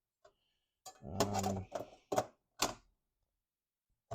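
A series of sharp clicks and knocks from the power-supply board and its plastic parts being handled on a bench. The loudest knock comes near the end.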